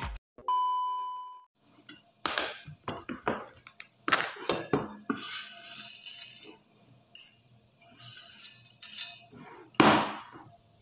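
Metal tins, a spoon and a small stainless-steel bowl clinking, knocking and scraping as dry flakes are poured from a tin into the bowl, with the sharpest knock near the end. A short steady electronic beep comes first.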